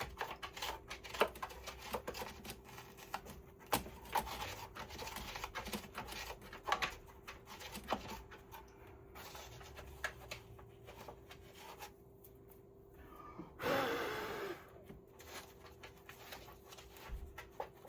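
Scratching, rustling and small clicks of foam insulation being dug and picked out of a water heater's anode-rod access hole. A short rushing sound with a falling pitch comes about 14 seconds in.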